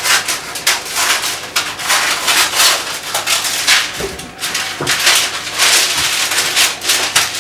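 Greaseproof paper rustling and crinkling as a sheet is pulled from the roll and handled over a baking tray, with a few faint knocks partway through.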